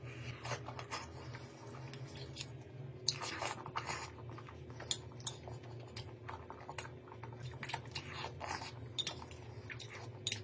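Cutlery clinking and scraping on plates, with chewing, in many short, irregular clicks and scrapes over a steady low hum.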